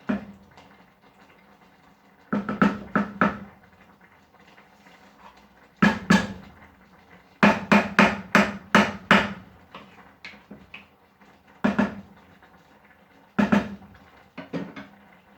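Metal spoon knocking against a cooking pot, a short ringing clank each time, in irregular bunches with a quick run of about six knocks in the middle.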